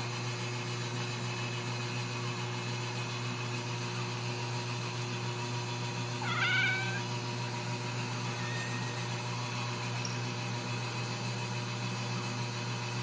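A Ragdoll kitten gives one short, rising mew about six seconds in, over a steady low hum.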